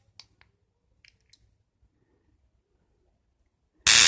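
TW-1502 mini stun gun flashlight firing a short, loud crackling zap near the end, after a few faint handling clicks.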